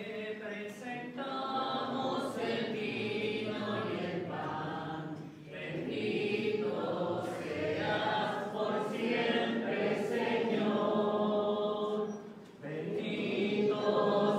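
A group of voices singing an offertory hymn at Mass, in long phrases that break off briefly twice.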